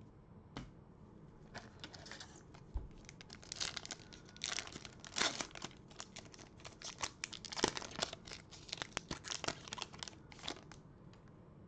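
A foil Panini Prizm basketball card pack being crinkled and torn open by hand. It makes a dense run of crackles and rips from about a second and a half in until shortly before the end.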